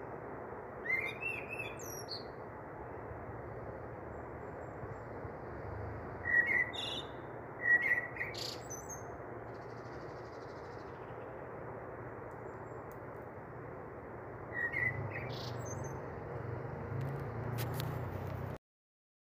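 A small bird chirping in short rising calls, in little groups about a second in, around six to eight seconds in, and near fifteen seconds, over a steady hiss. A couple of sharp clicks in between.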